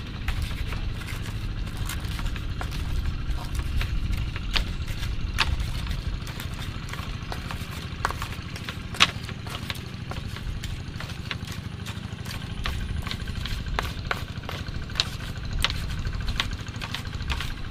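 Sambal being ground by hand with a pestle in a mortar (ulekan and cobek): irregular clacks and scraping knocks over a steady low rumble.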